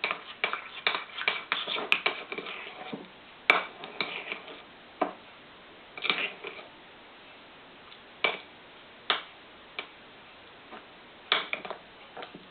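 A utensil clicking and knocking against a bowl while stirring sticky, part-cooked glutinous rice flour dough, with a quick run of knocks for the first few seconds, then scattered single taps.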